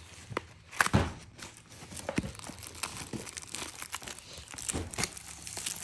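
Cardboard and paper packaging rustling and crinkling as a small box is handled and opened by hand, with scattered light knocks and clicks; the sharpest knocks come about a second in.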